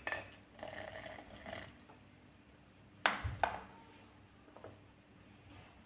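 Sugar syrup poured from a glass bottle into a drinking glass: a glass clink at the start, then a brief soft pour. About three seconds in come two sharp knocks as a glass is set down on the tiled floor.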